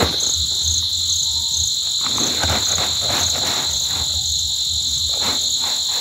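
Steady chorus of insects: a continuous high buzz with a quicker pulsing chirp above it. Under it, rustling of grass being pushed into a woven plastic sack, in bursts at the start, from about two seconds in, and again near the end.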